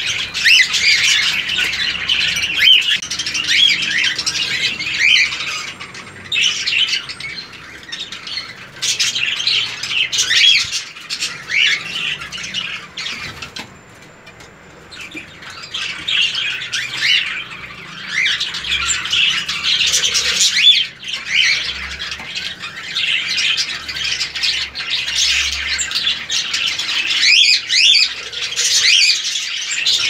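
Many cockatiels calling over one another in a dense chatter, which eases off briefly about halfway through.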